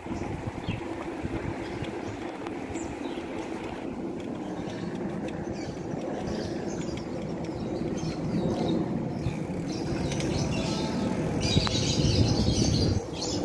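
Steady rumble of a bicycle rolling over brick paving blocks, with wind noise on the phone's microphone. Birds chirp near the end.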